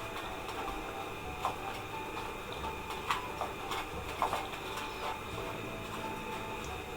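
Sliced potatoes being mixed by hand with tomato sauce and salt: scattered soft clicks and scrapes over a steady background hum.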